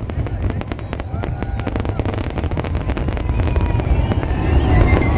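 Fireworks crackling: a dense run of sharp pops over a deep rumble, thinning out after about three seconds as voices in the crowd rise.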